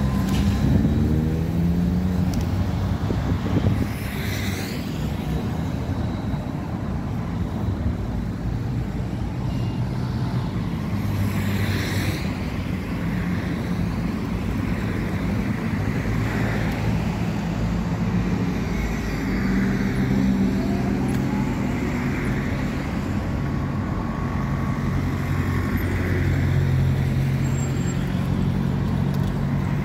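Road traffic: engines running and tyres on the road, with vehicles passing close by about four seconds and twelve seconds in.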